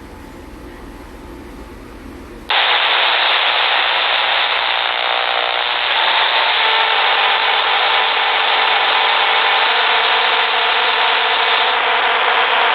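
Shortwave radio receiver static: a quieter hiss with a low hum, then about two and a half seconds in a sudden switch to loud, steady hiss with faint steady tones underneath as the set lands on a noisy frequency.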